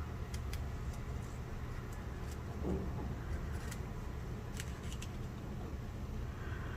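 Faint small clicks and handling noises from opening a small pot of solid nail gel, over a steady low hum.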